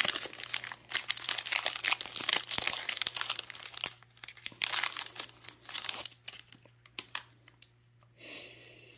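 Foil-lined trading-card pack wrapper crinkling and tearing as it is peeled open by hand: dense crackling for the first few seconds, then sparser crackles that die away near the end.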